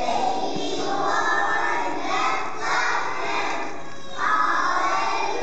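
A group of young children singing together, loud and somewhat shouted, in phrases broken by short pauses; a new, louder phrase starts about four seconds in.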